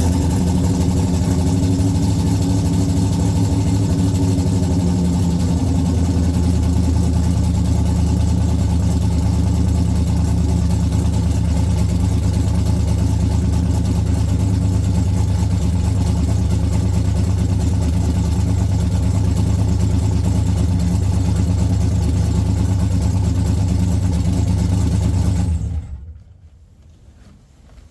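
Car engine idling steadily, then stops abruptly near the end.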